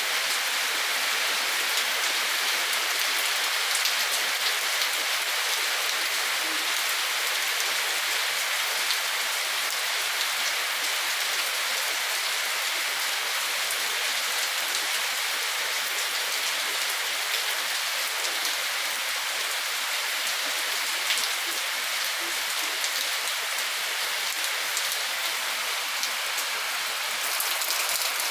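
Steady rain falling: an even hiss dotted with many small drop ticks, unchanging throughout.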